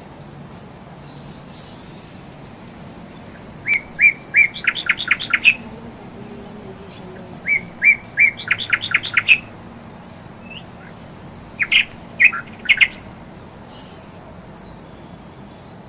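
A bird calling in three bursts of sharp chirps. In the first two bursts a couple of separate notes are followed by a quick run of about six chirps. The third burst is shorter.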